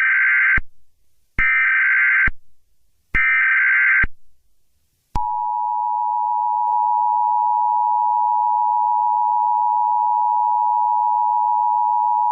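Emergency Alert System tones: three short bursts of the SAME digital header, a harsh data screech about a second each, then, about five seconds in, the steady two-tone EAS attention signal starts and holds.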